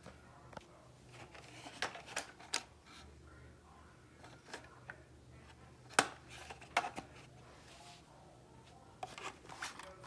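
Hard plastic fire alarm horn/strobe housings clicking and knocking against each other as they are picked up and handled, in a few scattered clusters, the sharpest knock about six seconds in.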